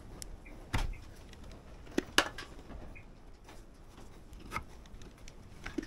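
A few scattered sharp clicks and taps from hands and a caulking gun working at a sheet-metal gutter, the loudest about two seconds in.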